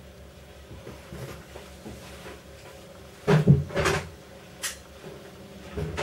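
Knocks and bangs of objects being moved or struck: the loudest a double knock about three seconds in, then a short sharp click and two more knocks near the end, over a low steady hum.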